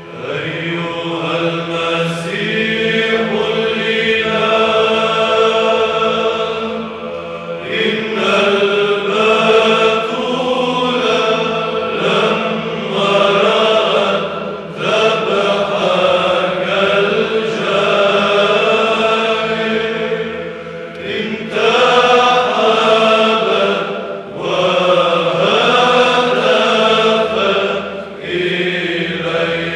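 A church choir chanting an Antiochian Orthodox Byzantine hymn in Arabic, a hymn of Lenten Great Compline: voices move in a slow melody over a steady held drone note (the ison), sung in phrases with brief breaks between them.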